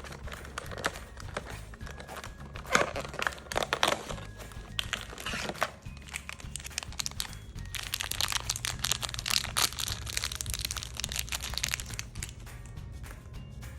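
Plastic toy packaging crinkling and crackling as it is handled and opened, densest about two-thirds of the way through, over soft background music.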